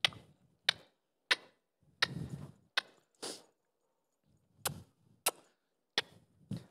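A series of about ten short, sharp knocks, some with a duller thump under them, coming irregularly about one every two-thirds of a second.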